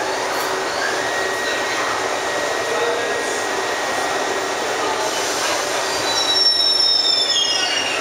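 Kawasaki-built R62 New York City subway train starting to pull out of the station: a steady rumble and hiss. From about five seconds in come high squealing tones that step down in pitch as the cars begin to move.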